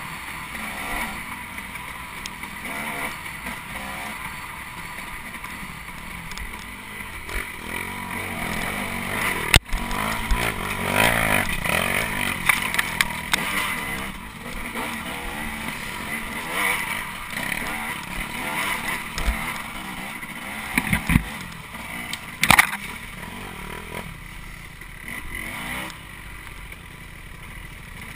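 Dirt bike engine running and revving up and down as it is ridden along a trail. There are a few sharp knocks, the loudest about ten seconds in and another pair a little past twenty seconds.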